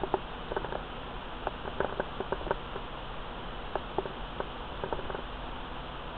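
Blizzard wind blowing as a steady hiss, with scattered light ticks several times a second.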